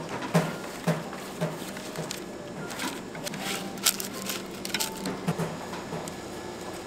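Kitchen work in a bakery: dull knocks about two a second for the first couple of seconds, then scattered sharper clicks and clatter, under faint background music.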